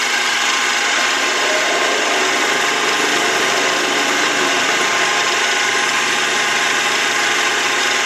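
Mini lathe running steadily with its chuck spinning, a continuous motor whine over a hiss, while a tool in the toolpost cuts a slot inside a drilled-out .22 LR shell holder.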